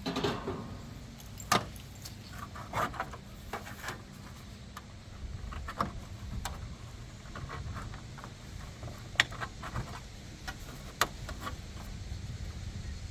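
Irregular sharp clicks, snaps and short scrapes of a pry tool working between overlapping siding panels to pop a seam loose.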